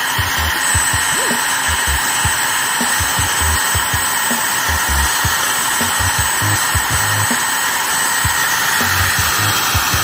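Heat gun blowing a steady stream of hot air, a constant hiss with a thin high whine, melting the thin layer of hot glue on a worn toilet flush-button plunger. A few soft low bumps come from handling.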